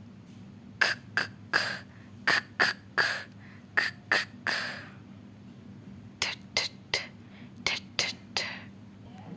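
A woman's voice making a run of short, breathless consonant puffs, letter sounds sounded out one after another in quick groups as in phonics practice.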